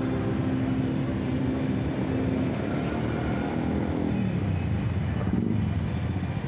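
City street traffic of motor scooters and cars passing close by, a steady mix of small engines and tyre noise.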